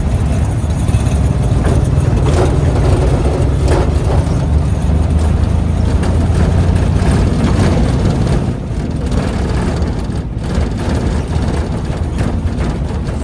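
Steady low rumble of a tuk-tuk in motion, motor and road noise together, with short rattles and knocks over the street surface. It eases off slightly about eight and a half seconds in.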